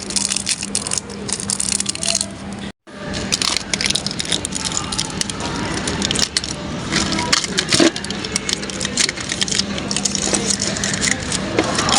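Close-up ASMR rustling and crinkling with many small taps and clicks as items are handled, broken by a brief cut to silence about three seconds in.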